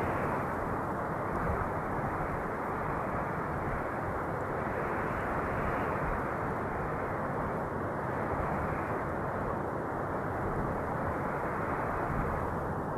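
Wind blowing steadily: a deep, even rushing with slight rises and falls every few seconds.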